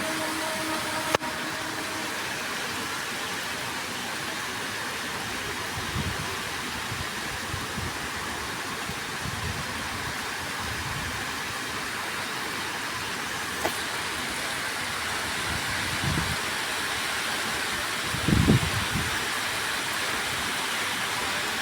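Steady rain falling, an even hiss. There is a sharp click about a second in and a few low thumps later, the loudest about three seconds before the end.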